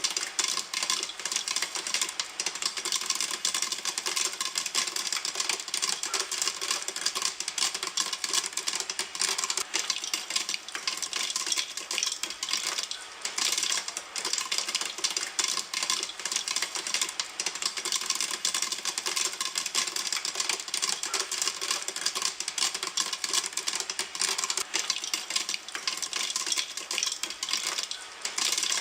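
Popcorn kernels popping in a pan: a dense, continuous run of sharp pops, many overlapping each second, at full boil with no lull.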